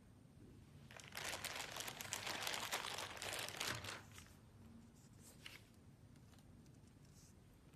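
Clear plastic packaging bag crinkling as it is opened and handled, starting about a second in and lasting about three seconds, followed by a few faint rustles of the plastic wrap.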